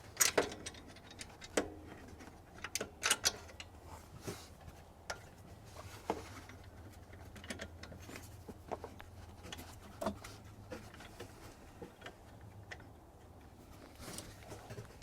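Scattered light clicks and taps of hand work as alternator mounting bolts are lined up and started into their threads, over a faint steady low hum.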